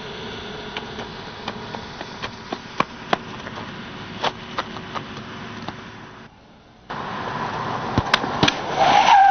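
A car approaching along a street, with scattered knocks and thuds, strong thumps about eight seconds in, and a short loud held tone near the end.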